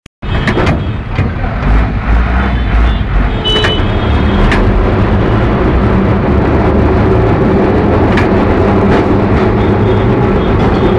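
Electric tram running along street rails, heard from inside the car: a loud, steady rumble and rattle with a low hum, and a few sharp clicks and knocks from the wheels and body. The sound builds over the first few seconds and then holds steady.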